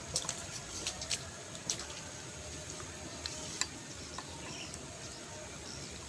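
Quiet forest ambience: a steady high insect buzz with scattered light clicks and ticks, and a brief faint bird chirp about five seconds in.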